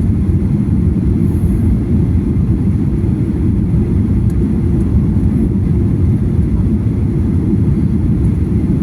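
Airliner cabin noise: a steady low rumble of engines and airflow heard from inside the passenger cabin.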